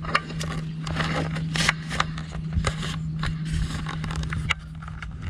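Irregular scraping and clicking handling noises, with a steady low hum underneath.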